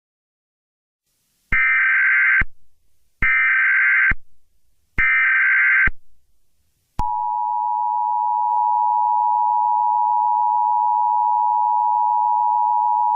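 Emergency Alert System alert opening: three one-second bursts of shrill digital data tones (the SAME header), about a second apart. Then, about seven seconds in, the steady two-tone EAS attention signal starts and holds.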